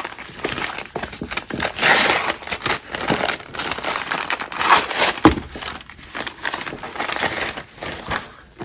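Paper and tissue-paper wrapping being torn open and crumpled by hand as a wrapped book is unwrapped layer by layer. It makes an irregular, continuous rustle, with louder moments about two seconds in and around five seconds.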